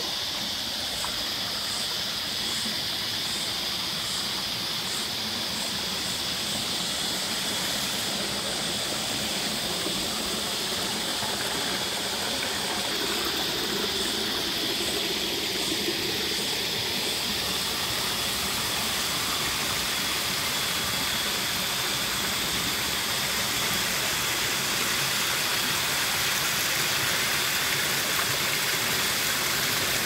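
Creek water flowing and splashing steadily, a continuous rushing sound.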